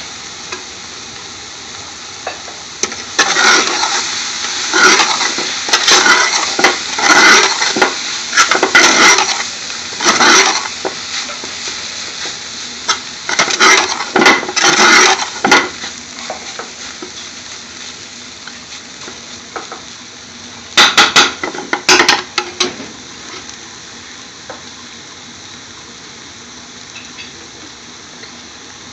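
Spinach frying in hot oil with garlic and onions, a steady sizzle. It is broken by three spells of stirring and scraping in the pan, the longest early on and a short one near the end.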